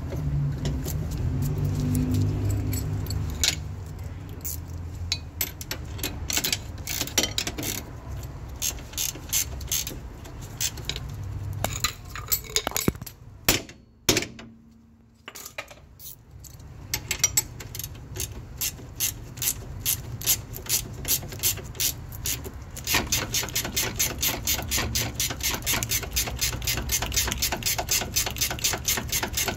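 Ratchet wrench clicking as the lower mounting bolt of a rear shock absorber is run in and tightened. The clicks come in scattered strokes at first, stop briefly about halfway, then settle into a steady run of about three clicks a second near the end.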